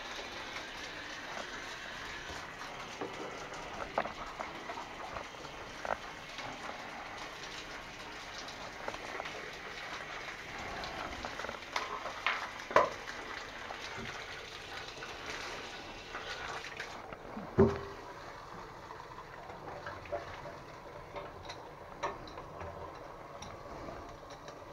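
Water gushing and splashing in a drain pipe being flushed during high-pressure cleaning, with a few sharp knocks scattered through it. About two-thirds of the way in, the hiss drops away and a lower splashing is left.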